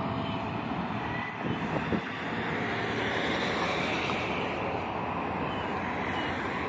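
CSX freight train's cars rolling away over the rails, a steady rumble with wind on the microphone and a couple of knocks about two seconds in.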